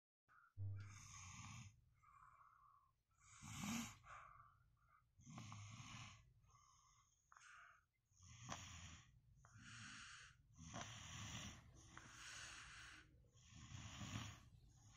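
Faint snoring: a run of rasping breaths in and out, one every second or two.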